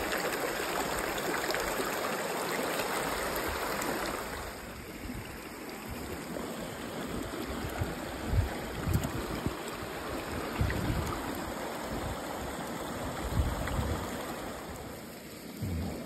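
Shallow stream rushing over rocks, close up. About four seconds in the rushing drops to a fainter wash, with a few scattered low thuds.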